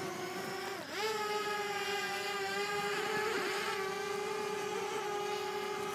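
Simtoo Fairy quadcopter's motors and propellers whining steadily in flight. The pitch dips briefly just before a second in, then comes back up and holds.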